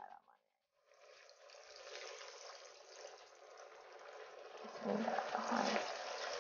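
Breadcrumb-coated potato-and-vegetable donuts sizzling as they deep-fry in hot oil, the sizzle building from about a second in. It swells sharply about five seconds in as a second donut is dropped into the oil.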